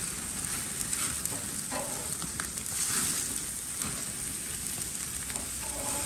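Steak frying in melted butter with a steady sizzle and light crackle while it sears on its second side.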